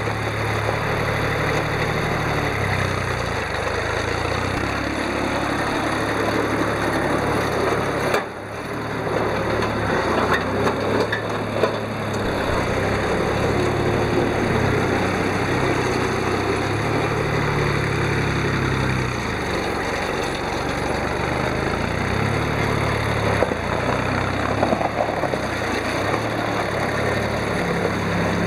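Diesel engine of a Mitsubishi MTE2000D compact tractor running steadily as the tractor drives, with a brief drop in level about eight seconds in.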